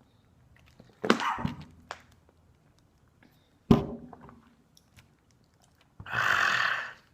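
A dull knock about a second in, a sharper knock with a brief ring near four seconds, then a one-second rush of breathy noise near the end.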